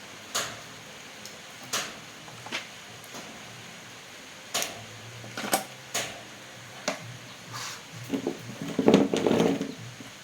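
Scattered sharp clicks and knocks of hard objects being handled, about a dozen spread out, then a louder rattling clatter near the end.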